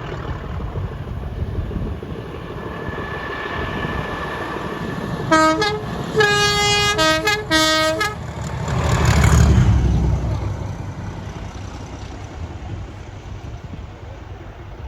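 A passing train sounds a two-tone horn in several blasts over about three seconds, alternating between a lower and a higher note. Its low rumble then swells as it goes by and fades away.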